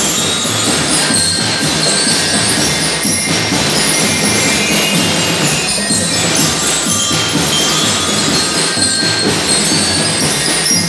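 Drum and lyre band playing: bell lyres ring out a tune in short high notes over a steady beat of marching snare and bass drums.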